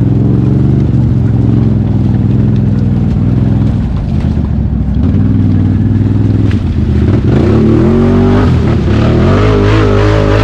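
ATV engine revving hard and unevenly under load, as when a quad is being worked out of deep mud. The pitch rises and falls repeatedly, then climbs higher and louder about seven seconds in.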